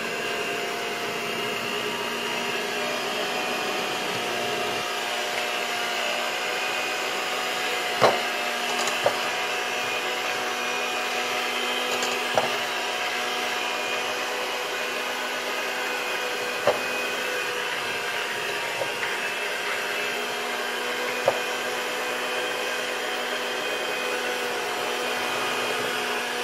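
Electric hand mixer running steadily at speed, its beaters creaming butter and sugar in a ceramic bowl. Five short sharp knocks against the bowl are spread through it.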